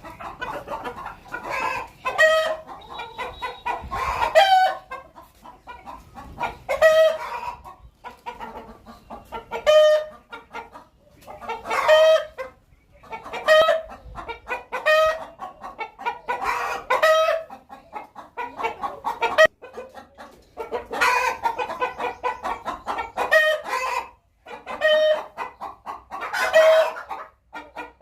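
Hen calling before laying an egg: runs of rapid clucks building to a loud, drawn-out call, repeated about every two to three seconds.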